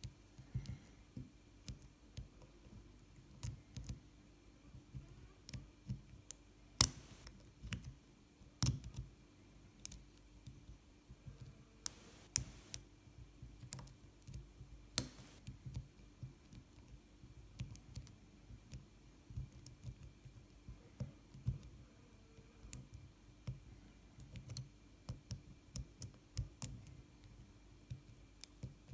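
Lock pick and tension wrench working the pin stack in the keyway of a BKS padlock: irregular small metallic clicks and scrapes, with a few sharper clicks scattered through.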